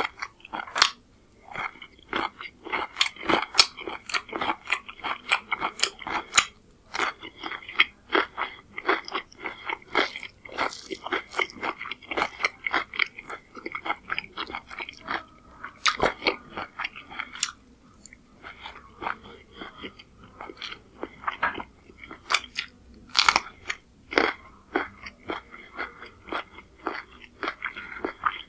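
Close-miked chewing and crunching of chicken curry and rice, a dense run of quick wet clicks and crunches with brief pauses.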